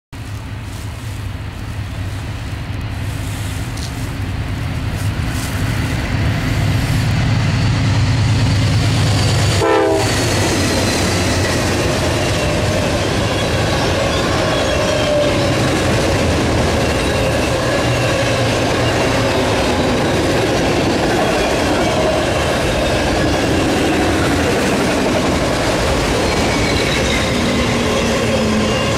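A freight train led by a GE Dash 9-40CW diesel locomotive approaching, its low engine drone growing louder over about ten seconds until the locomotive passes. Then the autorack cars roll by with a steady loud rumble, clicking wheels and faint high-pitched wheel squeals.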